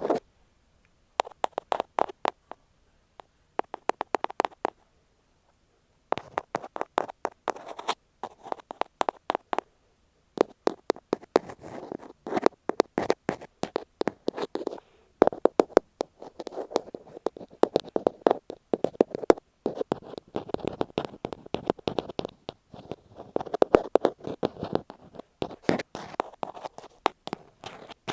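Ear pick tapping and scratching rapidly on an earphone microphone, close-up clicks in bursts broken by brief pauses.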